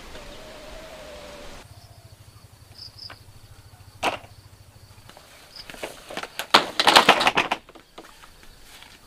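Footsteps scuffing on grass and dirt, with a sharp knock about four seconds in and a burst of louder, crackling scuffs and clicks around seven seconds.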